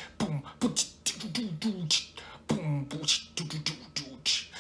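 Human beatboxing: a quick groove of mouth-made drum hits, with sharp hissing snare and hi-hat sounds over low hummed notes that slide downward.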